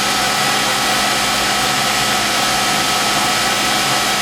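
Fadal VMC 2016L CNC vertical machining centre with its spindle running at a steady low speed: a constant machine whine with several steady tones over mechanical noise.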